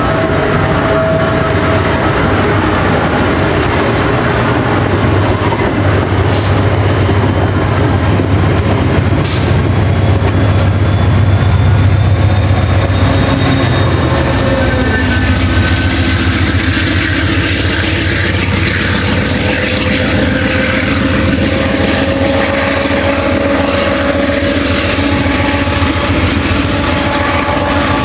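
Amtrak Cascades passenger train passing close by: the steady rumble of its coaches' wheels on the rails, with the low drone of the diesel locomotive growing strongest as it goes by about halfway through, then easing.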